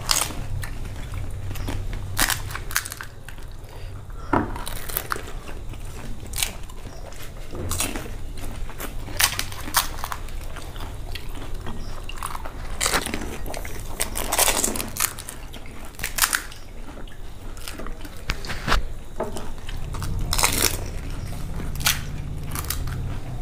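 Two people eating fuchka (panipuri) fast: crisp puffed shells cracked and bitten, with irregular crunches and chewing, the shells filled with spiced potato and dipped in tamarind water.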